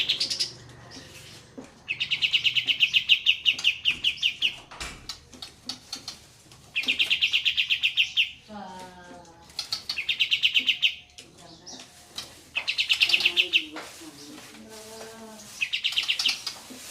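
Olive-winged bulbul (kapas tembak) singing its rolling trill. It comes as five rapid, high trills, each one to three seconds long, with short pauses between them.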